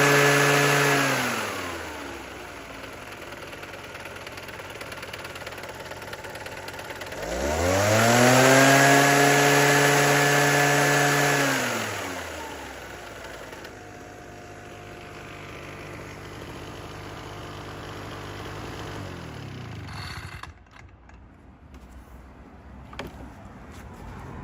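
Small engine of an Ochiai V8S tea-harvesting machine run without load: it drops from high revs to idle, is revved up again for about four seconds, settles back to idle, and is switched off about 20 seconds in, followed by faint handling noise and a click.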